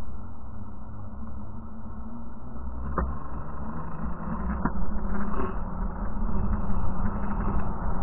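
Knobby bicycle tyre rolling on a paved path, with wind rumbling over the handlebar camera's microphone and a steady low hum. Two short clicks come about a second and a half apart near the middle.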